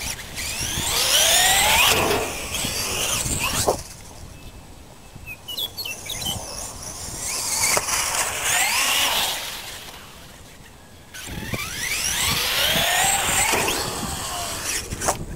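Brushless electric motor and drivetrain of a Traxxas E-Revo RC monster truck whining, rising and falling in pitch as it speeds up and slows, in three runs. A sharp knock about four seconds in.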